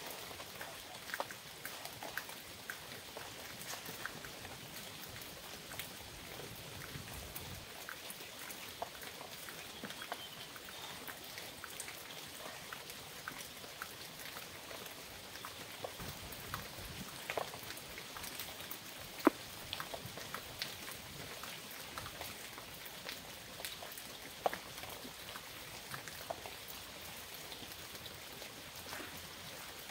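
Steady rain falling, with individual raindrops tapping close by at irregular intervals.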